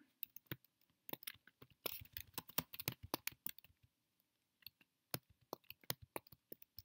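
Typing on a computer keyboard: faint, quick runs of key clicks, with a short pause about four seconds in before the typing resumes.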